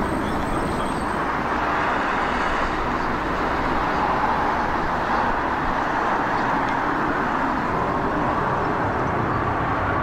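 Airbus A350 XWB's twin turbofan engines: steady jet noise from the airliner flying overhead.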